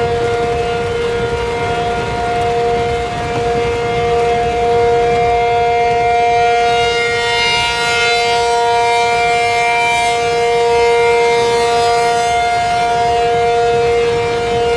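ACA Penetrator 50 outdoor warning siren sounding its steady alert signal for a tornado warning: a loud, unwavering two-note chord that swells and eases slightly in loudness.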